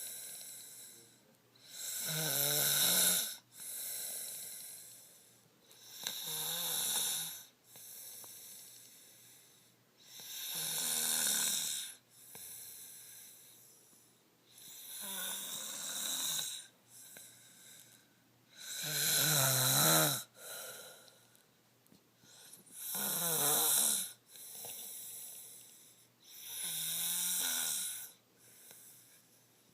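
A girl snoring in her sleep: a rough, low snore about every four seconds, with quieter breaths between the snores.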